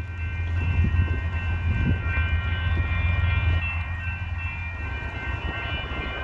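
Union Pacific diesel freight locomotives approaching with a low, steady rumble, while a grade-crossing warning bell rings continuously as a steady high-pitched ringing over it.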